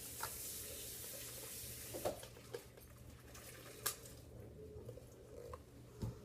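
Scattered light clicks and knocks, as of a plastic Nerf blaster and its attachment being handled, over a soft hiss that fades after the first couple of seconds.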